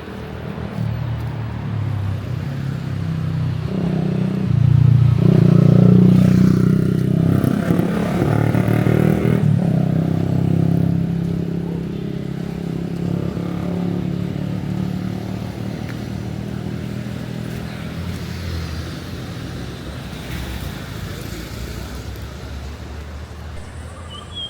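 A motor vehicle's engine passing close by. It grows louder to a peak about five or six seconds in, then fades slowly, its pitch shifting up and down as it changes speed.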